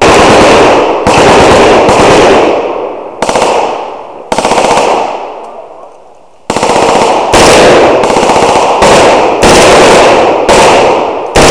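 Old AR-10 rifle in 7.62×51 mm fired on full auto in about ten short bursts, each cutting off into a decaying echo before the next.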